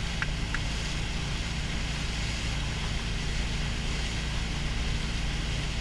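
Wake boat's engine running steadily under way, a constant low drone, with the rush of the churning wake water behind it.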